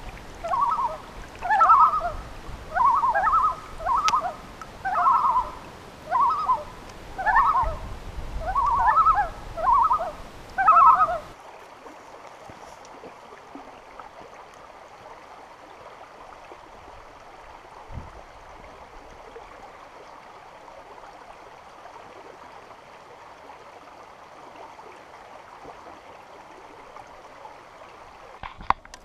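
A short squeaky note repeats about once a second over wind buffeting the microphone. About eleven seconds in it cuts off abruptly, and what follows is the steady rush of a shallow rocky stream.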